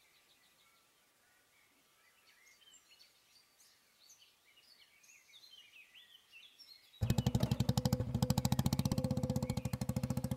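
Faint birds chirping, then about seven seconds in a motorcycle engine cuts in suddenly, loud and close, running with a rapid, even putter.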